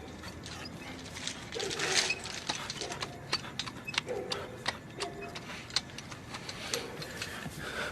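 Scattered sharp clinks and ticks of broken window glass, several a second and uneven, with a few faint short tones among them.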